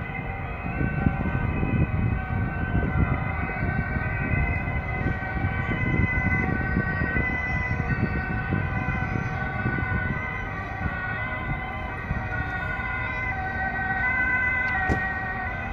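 Church bells of two churches ringing together for the eve of Sunday, a dense mix of overlapping, sustained ringing tones, over a low rumbling noise.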